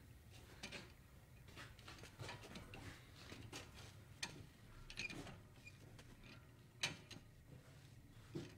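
Faint, scattered small clicks and rustles of handling and movement, about seven short ticks a second or more apart, over a low hum.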